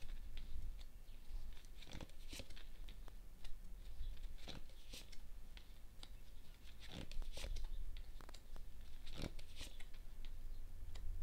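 Tarot cards being handled and laid out: irregular papery rustles and soft snaps, in scattered clusters.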